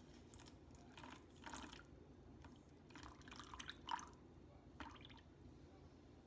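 Faint water pouring in short dribbles and drips from a glass mason jar into a porcelain ramekin, a few small splashes with the clearest about four seconds in.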